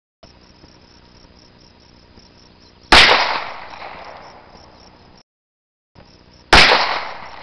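Two shots from a Springfield XD(M) 9 mm semi-automatic pistol, about three and a half seconds apart, each a sharp crack that trails off over a second or more.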